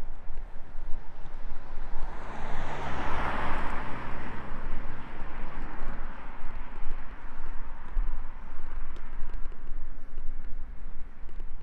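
A vehicle passing by: its noise swells to a peak about three seconds in, then fades away over the next few seconds, above a steady low rumble.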